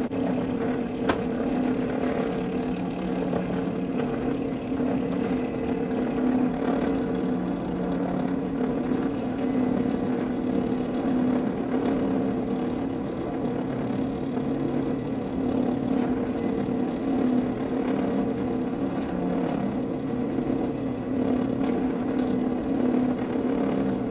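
Benchtop drill press running with a steady motor hum while it drills small 9/64-inch holes in a piece of angle aluminum.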